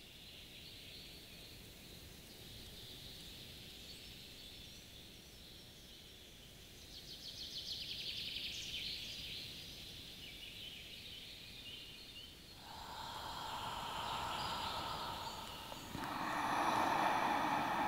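Outdoor nature ambience: a steady high hiss of insects and birds that grows denser about seven seconds in. About thirteen seconds in, a lower rushing noise comes in abruptly, and it gets louder again near the end.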